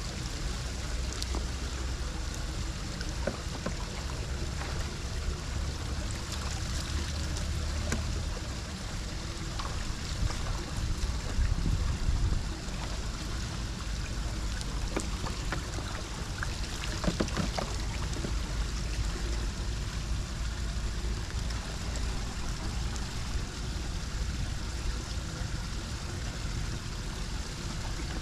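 Floodwater draining into a storm drain: a steady rush of flowing water with a low rumble underneath and a few small knocks.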